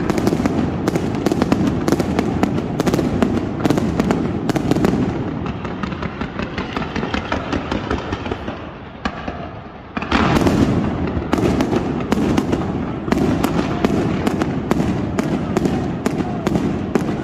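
Aerial fireworks display: rapid, overlapping bangs and pops from bursting shells. The firing thins out and quietens around eight seconds in, then comes back loudly with a sharp burst about ten seconds in, and keeps going fast.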